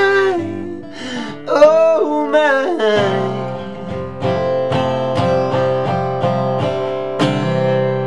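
Acoustic guitar strummed while a man sings a last sung line in the first few seconds; the strumming then goes on alone in a steady rhythm and ends on a final chord left to ring near the end, closing the song.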